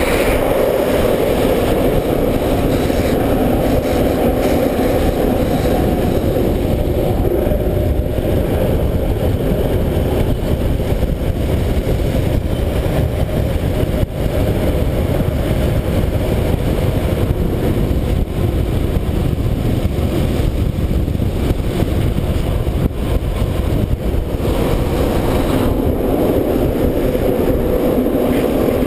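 Street luge wheels rolling fast on smooth new asphalt, a steady road roar, with wind rushing over the camera microphone. The wheel roar is strongest at the start and again near the end.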